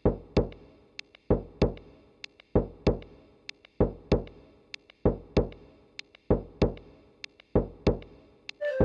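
A slow, heartbeat-like beat: pairs of deep thumps about every second and a quarter, each pair followed by a short high tick. A flute melody comes in at the very end.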